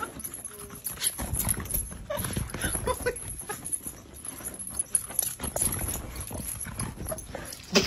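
A dog running about and playing, its paws making irregular knocks, with a few brief cries and a sharp hit near the end.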